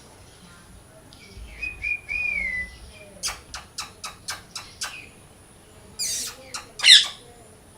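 Parrot calling: a short gliding whistle, then a quick run of about seven sharp chirps, then harsh screeches, the last one the loudest.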